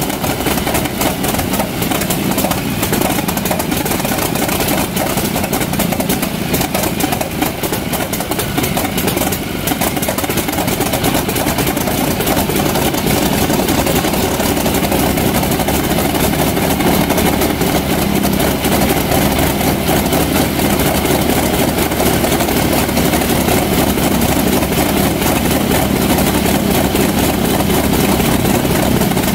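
Wright R-1820 Cyclone 9 nine-cylinder radial aero engine running with its propeller turning, just after start-up. It runs loud and steady, a little rougher at first and slightly louder and more even from about twelve seconds in.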